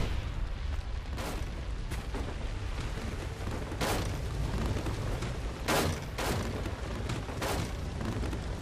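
A steady deep rumble with about half a dozen heavy booms or crashes at uneven intervals, the loudest about four and six seconds in.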